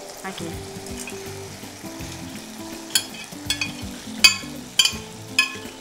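Fried potato fingers sizzling as they are tipped into a pan of hot sauce, while a steel spoon scrapes them out of a glass dish. In the second half the spoon strikes the glass dish with several sharp, ringing clinks.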